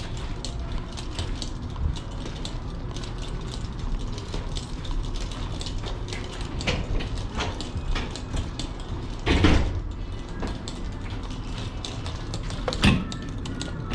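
Irregular mechanical clicking and rattling, with two louder clanks about nine and thirteen seconds in.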